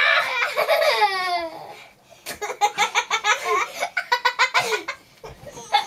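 A young boy squealing and laughing while being tickled: a high shriek that slides down in pitch over about the first second and a half, then a run of quick, choppy giggles.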